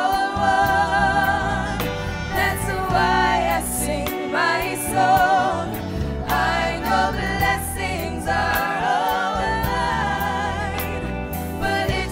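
Gospel song: a woman singing with vibrato over a band with bass and a steady drum beat.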